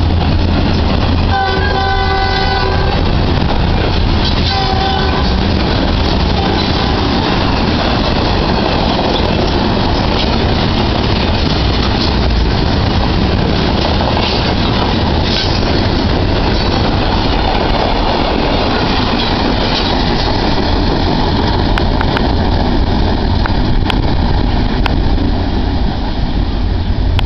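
Union Pacific freight train passing close by. The lead SD70M's horn gives two short blasts in the first few seconds, then the manifest's freight cars roll past with a steady rumble and clicking wheels over rail joints.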